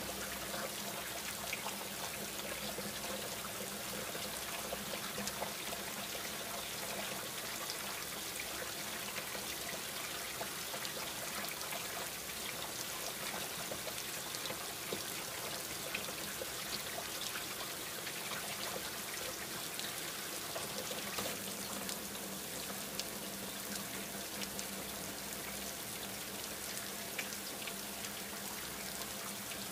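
Steady hiss like running or trickling water, with a faint low hum underneath.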